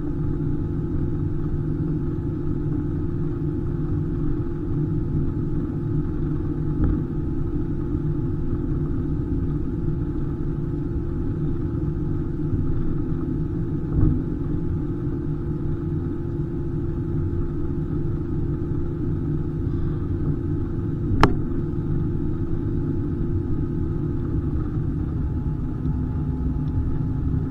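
Airbus A320 cabin noise: a steady low rumble of engines and airflow with a faint steady hum over it, broken by a few light knocks, the sharpest about two-thirds of the way through.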